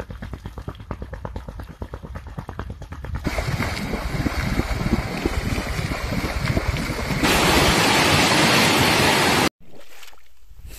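Muddy water bubbling and gurgling up out of the ground through standing water. It starts with a fast gurgling, turns louder and churning about three seconds in, then becomes a steady rush before dropping off suddenly near the end.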